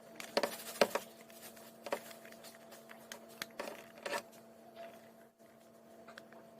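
Scattered light plastic clicks and handling noises as RJ45 plugs and a network cable tester are handled, over a faint steady hum.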